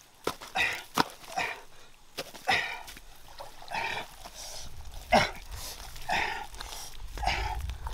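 Digging into a wet mud bank with a small hand tool and bare hands: repeated wet scrapes and squelches, roughly one a second, some with a sharp click of the tool striking soil.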